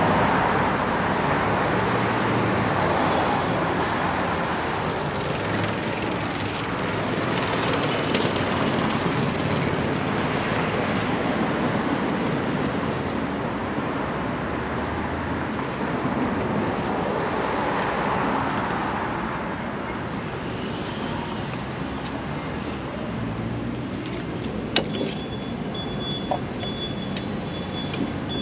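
Road traffic noise from passing cars, swelling and fading in waves. Near the end a click and a thin, high steady tone.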